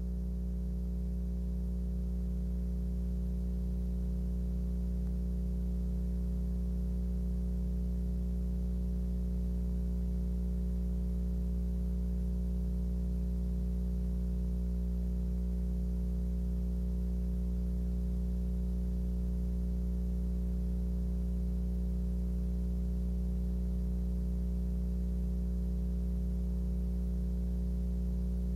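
Steady electrical hum: a low drone with several fainter higher tones, unchanging throughout.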